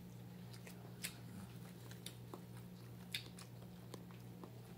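Faint chewing and biting by people eating rice and egg with their hands, with a handful of small sharp clicks scattered through it. A steady low hum runs underneath.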